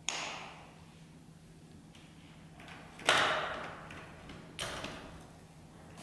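Clicks and clunks from taking the quick-release hub motor wheel off a folding electric wheelchair. There is a sharp click at the start as the motor cable is unplugged, then a loud clunk that trails off about three seconds in as the motor wheel comes off the frame, and a smaller clunk about a second and a half later.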